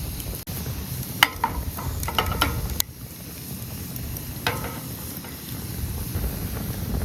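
Cooking at a campfire: a handful of sharp metallic clinks and taps, as of a utensil against a metal camp pan, over a faint frying sizzle and a steady low rumble of wind on the microphone.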